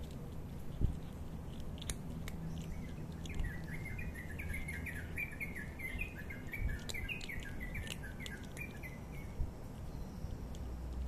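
A cat crunching dry kibble, with a few sharp crunches, while a bird sings a quick run of short chirps, about five a second, from about two and a half seconds in until near the end.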